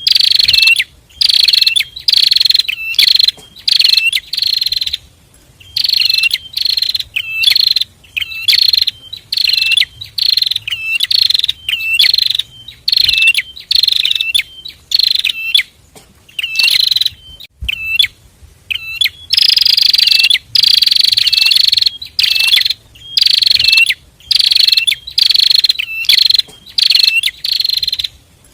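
A pair of prinias (prenjak) singing loudly: short bursts of sharp, buzzy high notes, about two bursts a second, with short gaps and a few longer unbroken runs.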